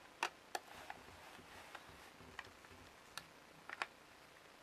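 Faint, irregular clicks and ticks of a screwdriver turning screws out of the plastic housing of a VeriFone 3750 card terminal.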